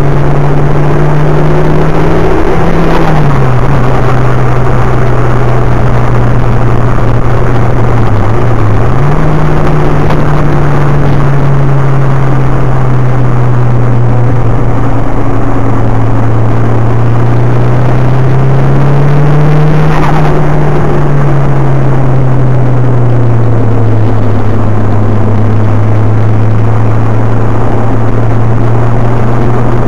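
Nissan Silvia S13's engine running hard, heard from inside the cabin over steady road and wind noise. Its note drops sharply about three seconds in, dips briefly and recovers around eight seconds, then climbs slowly and falls back to a lower steady note in the last third, with a couple of brief knocks along the way.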